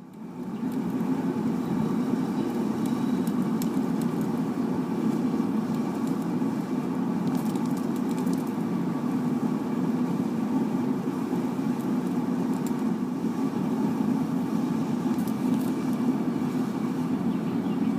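Forced-air propane burner running with a steady roar that builds up over about the first second, then holds even.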